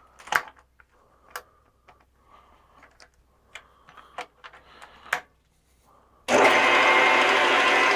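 Scattered clicks and knocks of tools and metal parts being handled, then, about six seconds in, a metal lathe switches on and runs with a steady motor and gear whine.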